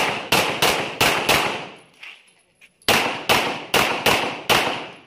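Pistol shots fired in quick succession: a string of five, a pause of about a second and a half, then five more, each shot with a short echoing tail.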